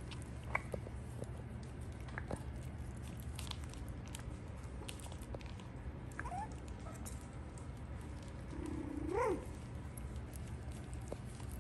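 Six-week-old schnauzer puppies squeaking and whimpering briefly as they play, with a louder rising whine about nine seconds in. Light clicks and scuffles sound throughout over a steady low hum.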